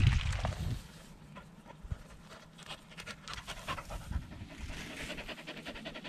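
A shaggy wire-haired dog panting hard with its mouth open after running, in quick, even breaths.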